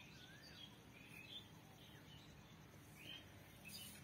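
Faint, scattered bird chirps and short rising-and-falling whistles over a low steady hum, with a brief rustle near the end.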